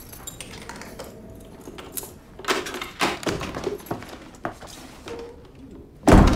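A few clinks and knocks, like keys or metal being handled, then one heavy thud about six seconds in, the loudest sound here.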